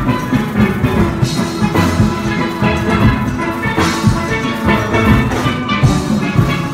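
A steel band playing together: many steelpans ring out rapid melodic notes over the bass pans, which are made from whole oil drums, with a steady beat.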